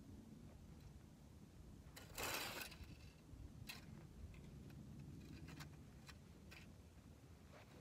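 A fan-shaped leaf rake dragged through dry grass: one short scratchy rustle about two seconds in, followed by a few faint clicks.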